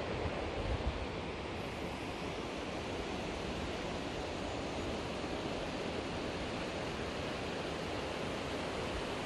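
Steady rushing wind noise with low, uneven buffeting on the microphone.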